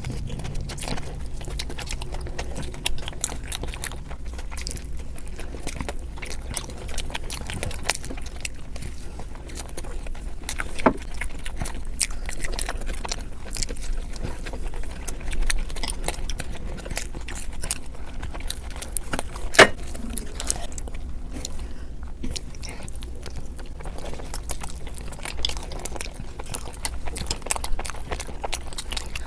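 Close-miked eating sounds: continual small crackles and wet clicks of chewing and biting, with a sharper click about eleven seconds in and another near twenty seconds, over a steady low hum.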